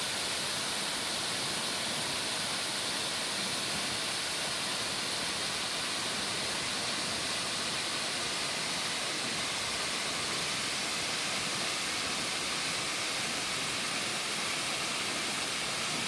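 Steady rushing roar of a tall waterfall with about 60 metres of free fall, water crashing without a break.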